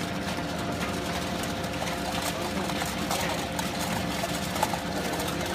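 Steady hum of a hydraulic press's electric motor and pump running, with several held tones and faint scattered clicks.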